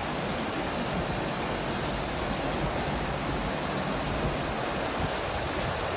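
Muddy floodwater rushing against and over a car's bonnet as the car drives through it, a steady, even rush of water.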